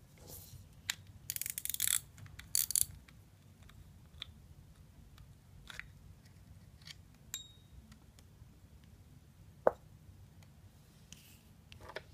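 Shimano spinning reel being handled and taken apart: two short runs of rapid ratchet clicking from the reel's mechanism a second or two in, then scattered small clicks as the spool is worked off, and one sharp knock near ten seconds in.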